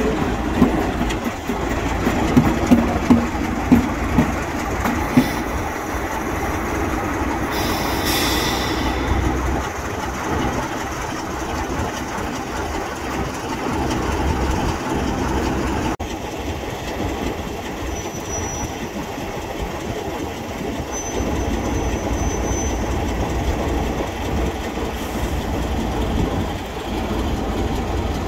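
A Class 33 diesel locomotive and a rake of old goods wagons roll slowly past with a steady rumble, their wheels clicking over the rail joints, with a brief high wheel squeal about eight seconds in.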